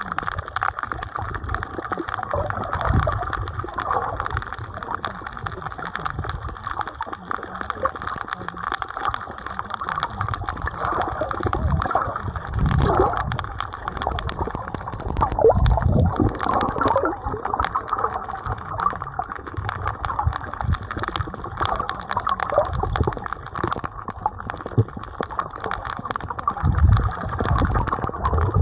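Sea water sloshing and gurgling around the camera, dull and muffled, with irregular low thumps throughout.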